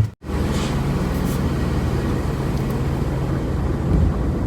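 2003 Toyota Highlander on the road, a steady engine and road drone with no clunk: the new sway bar links have cured the knocking.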